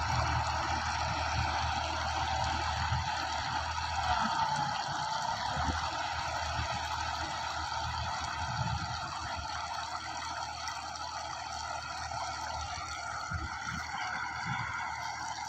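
New Holland 3630 tractor working a rotavator through a flooded paddy field: a steady watery churning and splashing over a low engine hum, which drops away about four seconds in.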